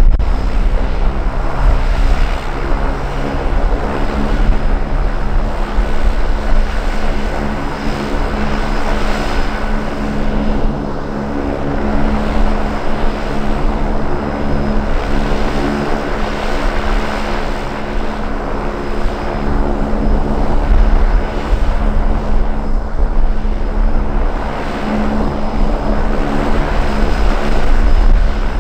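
Lancair Evolution's Pratt & Whitney PT6A turboprop idling on the ground with the propeller turning: a steady, even drone with a constant hum.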